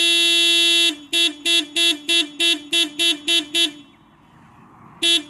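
Car horn sounded to call stray dogs to food: one long blast of about a second, then a rapid string of short toots, about three a second. After a pause of about a second, the toots start again near the end.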